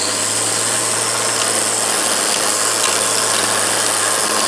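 Black & Decker cordless electric string trimmer running steadily at full speed: an even motor hum with the whir and hiss of the spinning nylon line over grass.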